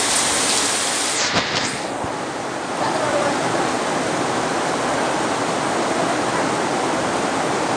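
Heavy rain pouring down steadily, a dense even hiss that thins briefly about two seconds in.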